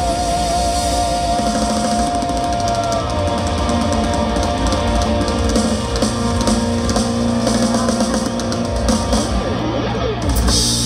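Live rock band playing an instrumental outro with drum kit, bass, keyboards and electric guitar. A held, wavering high note runs for the first three seconds, and a louder crash comes near the end.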